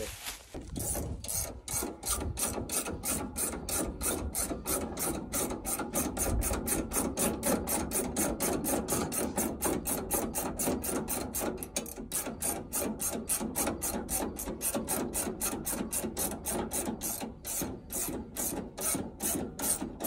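Ratchet wrench clicking steadily, about three to four clicks a second, while working a shear bolt that broke off flush out of a combine's drive sheave.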